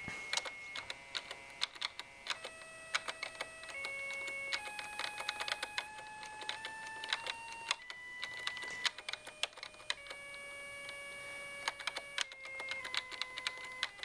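A 555-timer tone generator in a homebrew TTL computer sounding a steady electronic note that jumps to a new pitch about a dozen times as the bit pattern is changed, with computer keyboard keys clicking throughout.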